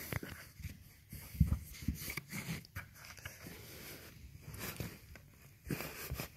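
A hand rummaging down the gap beside a sofa cushion: irregular rubbing and rustling with scattered soft knocks, the loudest about a second and a half in.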